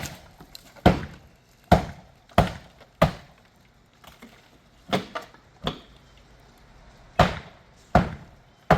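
Heavy blows striking the shed's wooden wall to knock a hole through it: about ten sharp strikes, five in quick succession, a pause of nearly two seconds, then five more in two short runs.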